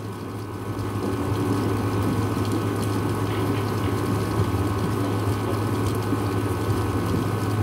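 Heavy rain pouring steadily in a thunderstorm, an even rushing noise that builds slightly in the first second, with a low steady hum underneath.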